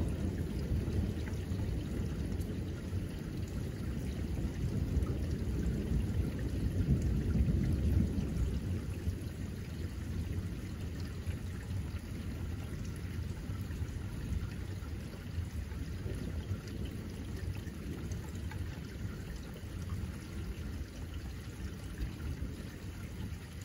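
Steady rain falling, with a low rolling rumble of thunder that swells about seven seconds in and then slowly dies away.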